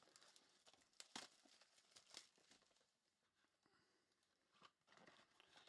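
Faint crinkling and rustling of trading card pack wrappers being handled and torn open, in a few short scattered bursts.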